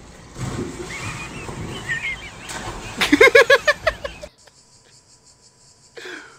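Splashing and commotion as a man jumps onto an inflatable pool float and falls into the water. This is followed, about three seconds in, by a burst of loud, rapid laughter that cuts off abruptly soon after four seconds.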